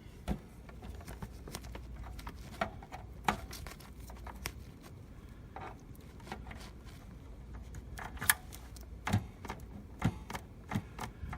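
Scattered small plastic clicks and knocks as an Ethernet cable's RJ-45 plug, fitted with a snap-on replacement latch clip, is handled and pushed into a network port. The sharpest click comes about eight seconds in.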